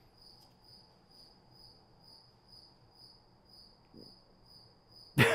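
A cricket chirping steadily, a thin high trill pulsing about twice a second. A voice breaks in right at the end.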